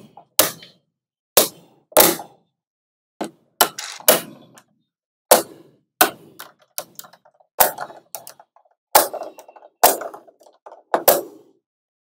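Small magnetic balls clicking as they snap together and onto the build, in sharp, irregular clicks about one or two a second, some in quick pairs.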